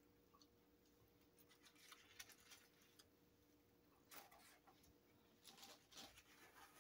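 Near silence: room tone with a faint steady hum and scattered soft rustles and clicks from people eating fries and handling a paper burger wrapper, clustered about four seconds in and near the end.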